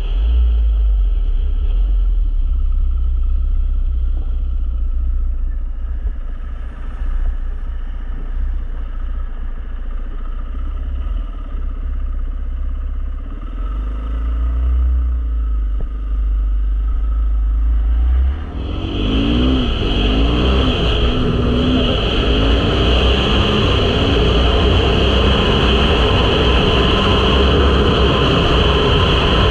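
KTM 500 EXC-F single-cylinder four-stroke dirt bike engine running at low revs, then about 18 seconds in accelerating hard, rising in pitch through a few gear changes before settling into a steady cruise. Wind buffets the camera microphone with a low rumble throughout.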